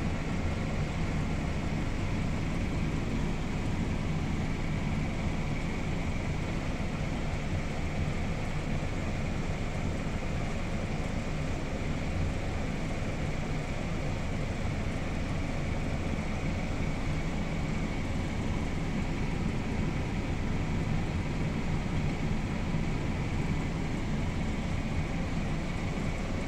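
Diesel engines running steadily: a Valtra N143 tractor idling with a Hitachi Zaxis 210 LC excavator working its boom, a low drone with a faint steady whine and no distinct knocks.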